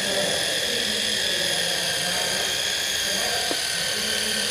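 Corded handheld electric orbital polisher running on a metal wing panel, a steady high-pitched motor whine.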